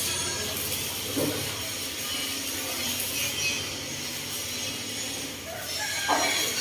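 Cutting torch working on the steel side of a truck body, a steady hiss.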